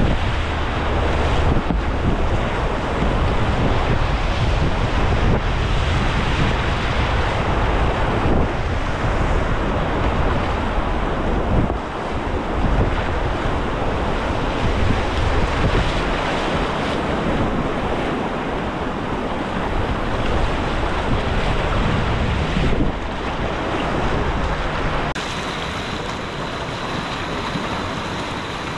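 Class II whitewater rushing and churning around a kayak, close to the microphone, with wind buffeting the mic. It eases off near the end as the boat reaches calmer water behind a boulder.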